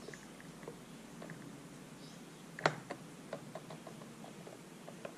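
Small metal clicks and clinks of transaxle gears and parts being handled and seated in the case by hand, with one sharper knock about two and a half seconds in and a quick run of light clicks after it.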